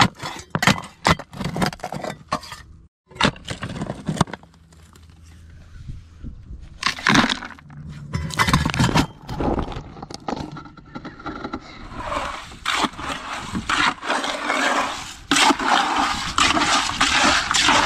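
Irregular knocks and scrapes, then in the last several seconds a dense gritty scraping of wet concrete being mixed by gloved hands in a plastic bucket.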